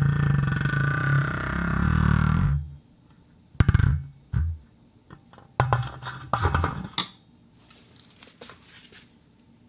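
Plastic ball rolling inside a wooden box with a steady rumble for about two and a half seconds, then a few separate knocks and a quick cluster of rattling hits as it strikes the wood, fading to faint light ticks.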